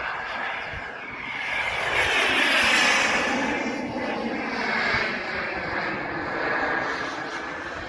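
RC jet's KingTech turbine rushing as the model flies past, swelling to its loudest about two to three seconds in and then fading.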